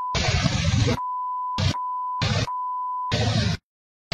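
A steady, high single-pitch bleep tone cuts in and out about four times, taking turns with short chunks of loud, rough outdoor noise. The sound drops to dead silence near the end.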